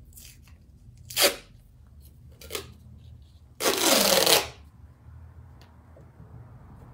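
Duct tape being pulled off its roll: two short rips, then a louder, longer rip of about a second midway through.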